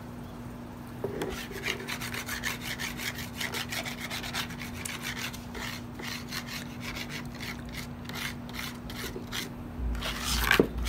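Stone hand roller (metlapil) grinding on a stone metate: quick, repeated rasping stone-on-stone strokes that start about a second in and get heavier near the end.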